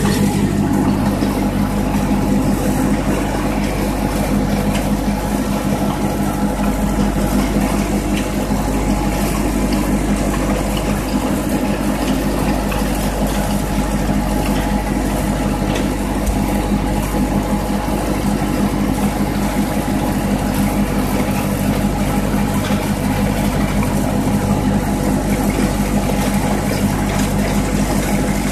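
1952 Ford tractor's four-cylinder engine running steadily at an even speed as the tractor drives along.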